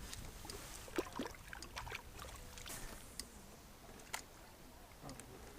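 Faint lake water lapping, with a few small, sharp clicks and knocks scattered through it.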